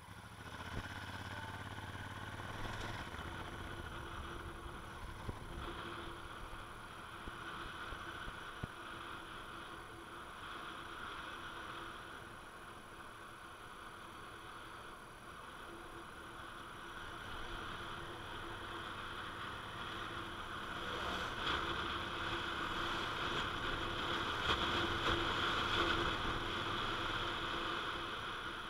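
Honda Africa Twin motorcycle riding along a rough road: steady engine note under road and wind noise, growing louder in the last third as it picks up speed.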